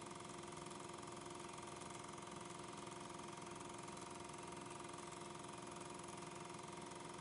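An 8mm film projector running: a steady mechanical whir with a fast, even flutter and a few held tones. Regular 8mm film carries no sound, so this is the projector heard during the film transfer.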